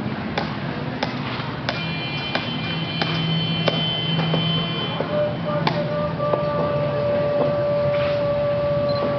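Military band music: drum strikes with long held brass notes.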